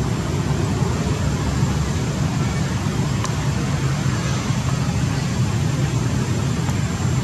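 Steady low background noise with no distinct events.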